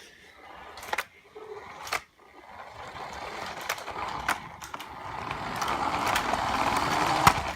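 A toy remote-control car running: its small electric motor whirring and its wheels rolling over the floor, growing louder from a near pause, with a few sharp knocks as it bumps along.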